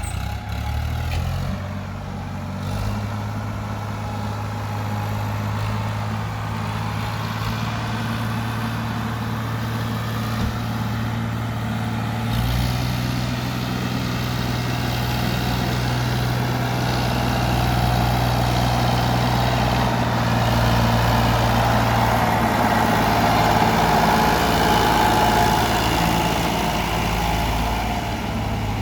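Diesel engine of heavy earthmoving or farm machinery running steadily. It revs up about a second in and gets louder from about halfway through.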